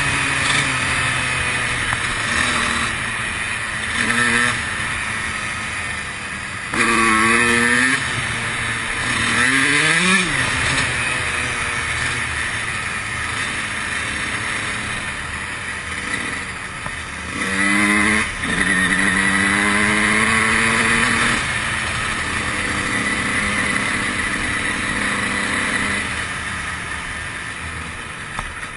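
2003 Honda CR125's two-stroke single-cylinder engine being ridden, revving hard in several sharp rising bursts, one about four seconds in, two more between about seven and ten seconds, and a longer run about two thirds of the way through, with steadier running in between. It drops to a quieter run near the end.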